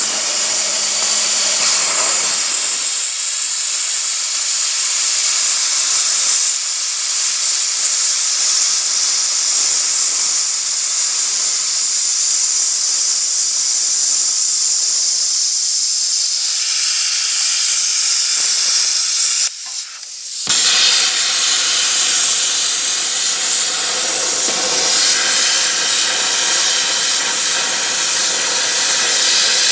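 Plasma cutter torch hissing steadily as it cuts through a lathe bed. The arc cuts out briefly about two-thirds of the way through, then restarts with a fuller sound.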